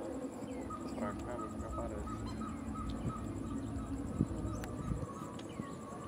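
Outdoor ambience: a steady low rumble with scattered short bird chirps and a faint, evenly repeating high pulsed call.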